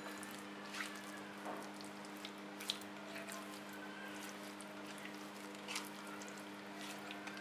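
Raw fish pieces being mixed with salt and black pepper in a glass bowl with a silicone spatula: faint wet squishing and a few light clicks of the spatula against the glass, over a steady low hum.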